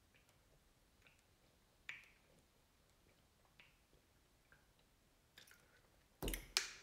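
Soft, faint gulps while drinking from a plastic water bottle, then the bottle is brought down and set on the wooden table with a loud knock near the end.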